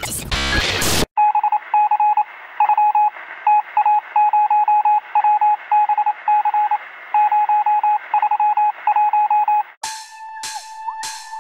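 Sound-effect intro: a brief loud rush of noise at the start, then a long irregular run of short and long electronic beeps at one pitch, like Morse code, over a faint hiss. Electronic music with sharp beats comes in near the end.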